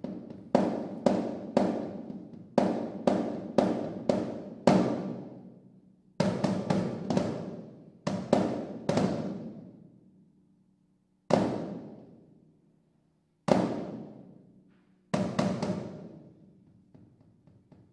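Piano and percussion playing contemporary chamber music: sharp struck notes or drum strokes in quick groups of three or four, each ringing away. About halfway in, the groups give way to two lone strokes separated by long pauses, then a last cluster that fades near the end.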